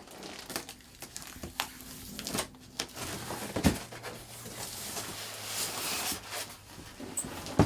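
A cardboard shipping box being opened by hand: scattered knocks, clicks and rustling of cardboard and packaging.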